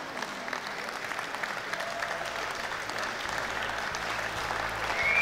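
Audience applauding, a steady patter of many hands clapping that swells slightly towards the end.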